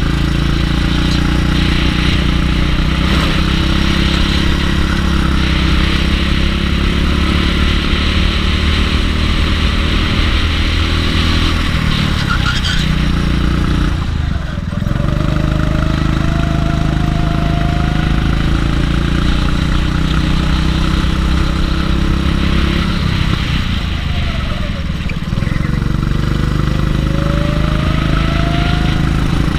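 Go-kart engine heard close up from onboard, running hard on a lap; its pitch drops twice as the kart slows for corners and climbs again as it accelerates out.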